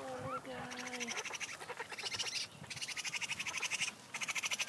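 Baby raccoon kits, still blind, crying and chattering: a drawn-out pitched cry for about the first second, then three bursts of rapid, high-pitched chattering.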